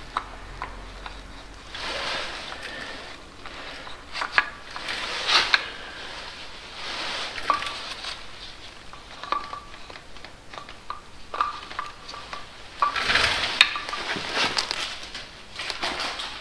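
Hand assembly at the front of a Mercedes M113 V8 block: timing-chain guides and other metal parts clink and click as they are handled and fitted, with several short bursts of rustling, scraping handling noise.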